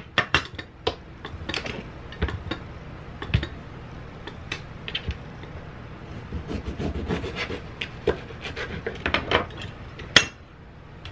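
Hand-held metal lime squeezer clacking as lime halves are pressed, with a knife cutting through a lime on a plastic cutting board: a run of separate clicks and knocks, the sharpest one near the end.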